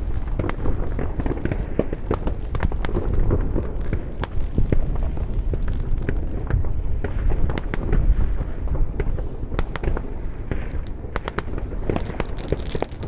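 New Year's Eve fireworks and firecrackers going off all around: a dense, continuous run of sharp cracks and bangs over a steady low rumble.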